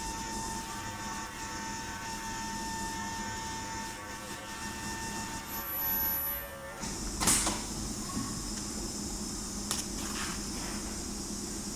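Ultrasonic cutting and welding machine running with a steady hum and a held tone; a short high-pitched whine sounds around six seconds in, followed by a sharp clack about seven seconds in and a lighter click near ten seconds.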